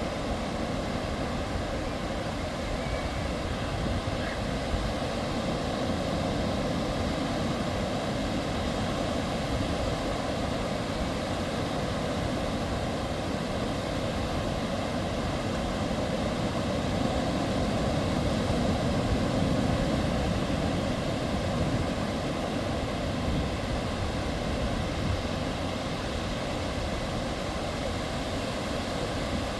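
A steady engine drone with a rushing noise, unchanging throughout.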